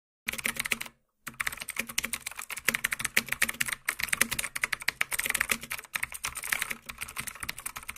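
Computer keyboard typing sound effect: a rapid, uneven stream of key clicks, with a brief pause about a second in.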